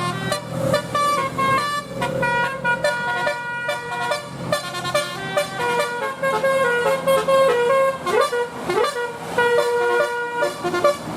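Bus telolet 'basuri' musical horn playing a quick melody of held, stepped notes, with two short upward slides near the end. Under it, the bus engine runs with a low rumble.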